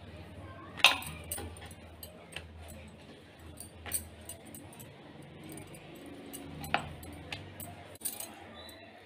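Rolling pin knocking and clacking against a rolling board as dough is rolled out, in irregular sharp taps, the loudest about a second in, over a low steady hum.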